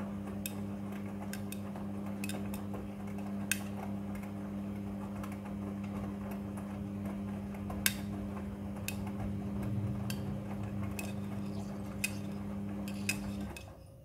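Midea front-loading washing machine in its wash cycle: the motor hums steadily as the drum tumbles the wet load, with scattered sharp clicks from hard bits in the laundry knocking against the drum. Near the end the hum cuts off as the drum stops turning.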